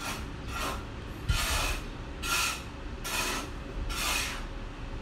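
Toshiba copier powering up: a repeated rasping swish from its mechanism about once a second, with one low thump about a second in.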